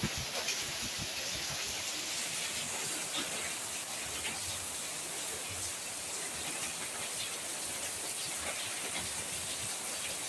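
Rain falling steadily: an even hiss with scattered drops pattering close by.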